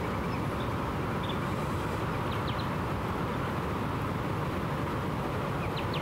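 Steady low background rumble with no change in level, with a few faint, brief high bird chirps scattered through it: one about half a second in, a couple near the middle and another near the end.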